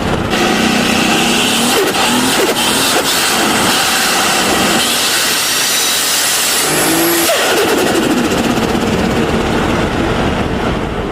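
Turbocharged car engine running and revving hard, with a constant rushing hiss over it. A faint high rising whistle comes about two-thirds of the way in.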